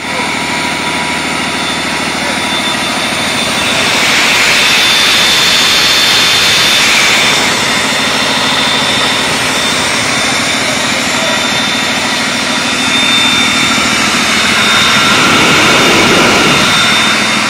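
2009 Cummins ISB 6.7L six-cylinder diesel running on a test stand, heard as a loud rushing hiss of air with a steady high whine over it. The rush swells twice, the second time as it is heard right at the open air intake.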